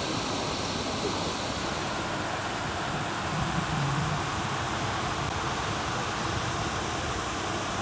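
Steady outdoor background hiss, even and unchanging, with a brief faint low murmur about three and a half seconds in.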